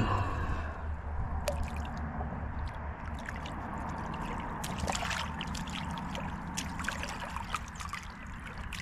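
A black crappie being swished back and forth in lake water to rinse the mud off it: light splashing and trickling, with a few sharper splashes.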